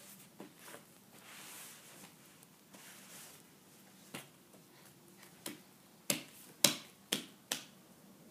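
Six short, sharp clicks from about four seconds in, the last four coming about two a second. They follow faint soft rustling.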